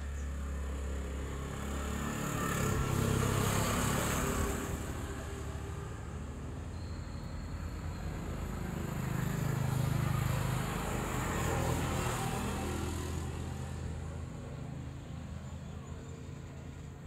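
Two motor vehicles passing one after another, each engine sound rising and fading, the first loudest about three seconds in and the second about ten seconds in.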